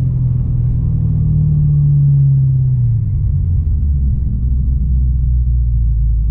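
Supercharged HSV V8 engine and exhaust droning low while the car cruises, with road noise underneath. The note drops in pitch around the middle and then holds low.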